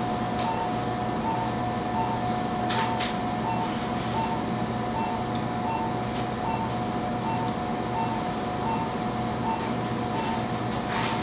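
A steady hum and hiss with a soft electronic beep repeating at an even pace, about four beeps every three seconds. A couple of faint clicks come in a few seconds in and again near the end.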